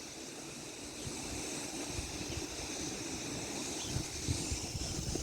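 Steady wash of sea surf with wind buffeting the microphone, heard as a low fluttering rumble under an even hiss.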